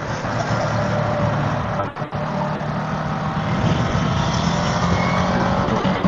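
Ducati Multistrada V4 S's V4 engine pulling as the motorcycle accelerates, its note slowly rising, mixed with wind rushing over a helmet-mounted microphone. The sound dips briefly about two seconds in.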